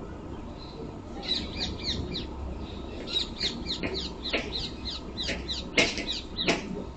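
A bird calling in a rapid run of short, high chirps that starts about a second in, with two louder calls near the end.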